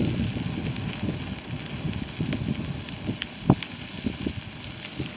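Fire burning through the wreckage of a snowmobile trail groomer: a low, steady rumble with scattered crackles and pops, one sharper pop about three and a half seconds in.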